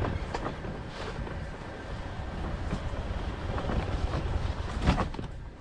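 Off-road motorbike engine running at low speed as the bike approaches, mixed with wind rumbling on the microphone.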